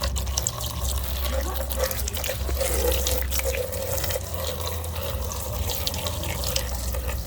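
Water running and splashing, as from a tap, while muddy plastic toy vehicles are rinsed, with scattered light clicks.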